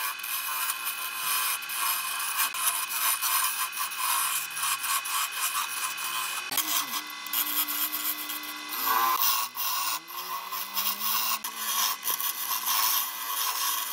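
A lathe chisel cutting into a spinning wooden blank, a continuous rough scraping as shavings peel off the wood, with a brief louder patch of cutting about nine seconds in.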